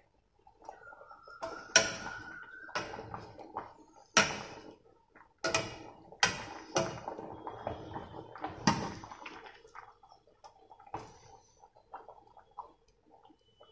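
Steel perforated skimmer ladle knocking and scraping against the rims of a pot and pan while part-boiled basmati rice is scooped out of boiling water and layered into the biryani. Several sharp metal knocks come through the middle of the stretch, with lighter clatter between them.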